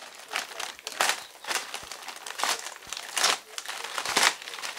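Clear plastic wrapping crinkling as it is pulled off a new transmission by hand, in about half a dozen irregular rustling bursts.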